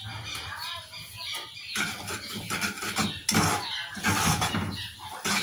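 Metal spoon stirring and scraping chocolate frosting in a metal saucepan, in uneven strokes from about two seconds in, over a low steady hum. High squeaky sounds come in the first second or so.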